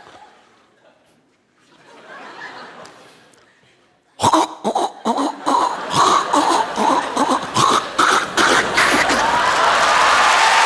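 A comedian's vocal imitation of a train heard from inside: a sudden, loud, rapid run of hacking, clicking throat noises starting about four seconds in. Near the end it runs into audience laughter and applause.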